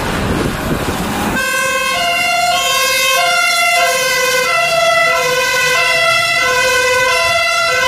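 German fire engine's two-tone siren (Martinshorn) sounding, switching back and forth between two steady pitches. It starts about a second and a half in, after a rushing noise.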